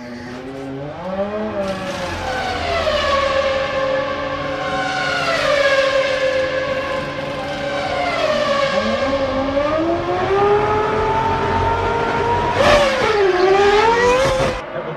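Formula One cars' engines screaming at high revs, their pitch holding, dropping as they brake and downshift, then climbing again through the gears, with a sharp swoop down and back up near the end.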